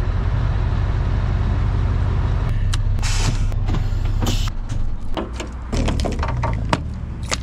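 Scania V8 lorry diesel engine idling, with a short air hiss about three seconds in, typical of the air parking brake being set. The engine note drops away about four and a half seconds in, and a few sharp clicks and knocks follow as the fuel filler cap is handled.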